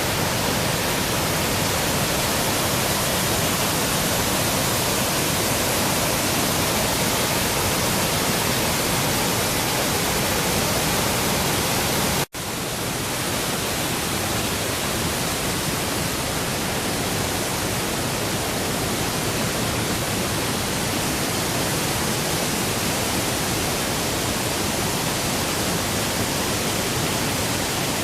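Steady roar of Fukiware Falls, a broad river waterfall running heavy with water after recent torrential rain. The sound cuts out for an instant about twelve seconds in, then carries on unchanged.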